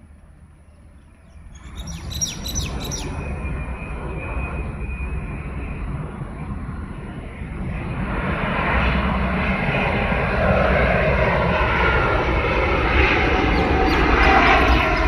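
Boeing 787-8 airliner passing low overhead on approach with its landing gear down: jet engine roar that grows steadily louder and is loudest near the end, with a faint whine sliding down in pitch. A bird chirps briefly about two seconds in.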